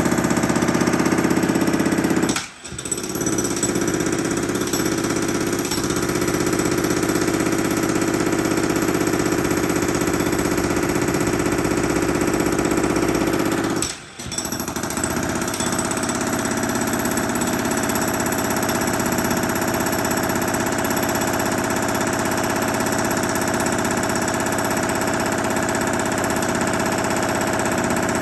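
Jackhammer breaking up concrete in one long continuous run, stopping for a moment twice, about two and a half seconds in and again at about fourteen seconds.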